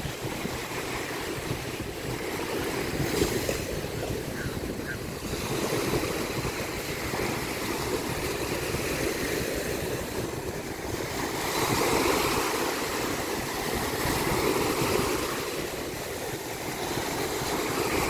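Ocean surf: small waves breaking and washing in, a steady rush of water that swells louder every few seconds as each wave breaks.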